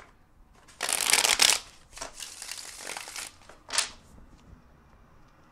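A tarot deck shuffled by hand: a loud burst of shuffling about a second in, softer shuffling after it, and a short sharp snap of cards near 4 s.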